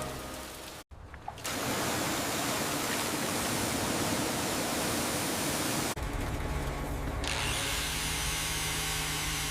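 Steady whirring power-tool noise in two stretches, with an abrupt change at about six seconds; music fades out at the very start.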